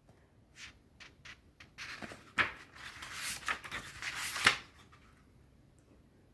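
A book being handled: a few light taps, then paper and cover rustling for about three seconds with a couple of sharper knocks.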